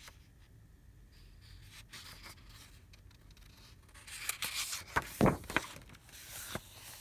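Paper pages of a picture book being handled and turned: a rustling scrape with a few sharp clicks, coming after about four seconds of quiet.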